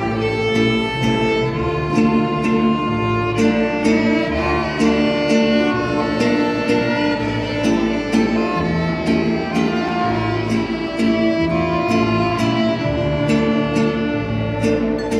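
Instrumental Mexican string music: violins playing a melody over strummed guitars with a steady rhythm.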